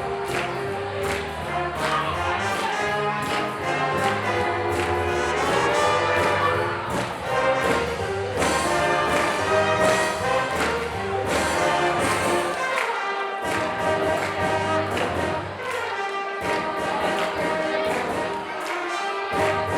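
Recorded music with a steady beat, brass or orchestral instruments over a bass line; the bass drops out briefly a few times in the second half.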